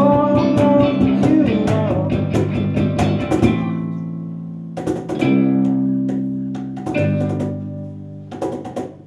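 Small live acoustic rock band (classical guitar, electric bass and cajón) with a male singer. The singing stops about a second and a half in, and a few chords are then struck and left to ring out and fade.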